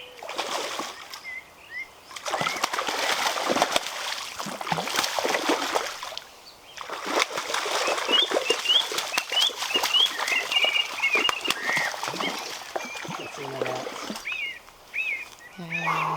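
A hooked brown trout thrashing and splashing at the water's surface while being played in, in three long bursts of spattering water. Songbirds chirp in the gaps.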